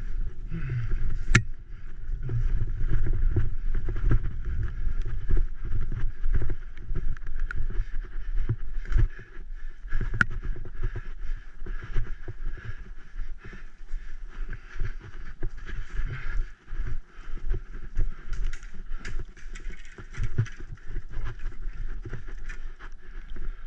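Graziella bicycle ridden fast down a rough, muddy woodland trail: a low rumble with constant rattles and knocks as the bike jolts over the ground, and wind buffeting the action camera's microphone.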